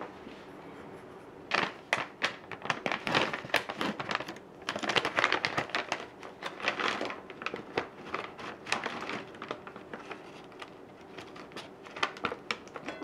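Crinkly foil-lined plastic snack bag handled, opened and shaken, a dense run of crackles. Near the end dried tempura squid strips are shaken out of it onto a china plate.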